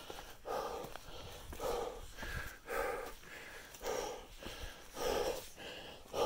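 A hiker's heavy, rhythmic breathing from the exertion of climbing a steep rocky trail. A strong exhale comes about once a second, with softer breaths between them. Faint footfalls thump underneath.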